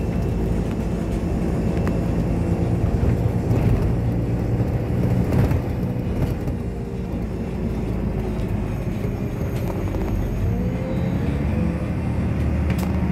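A bus engine running, heard from inside the passenger cabin as a steady drone with road noise. About ten seconds in, the engine note dips and then climbs again.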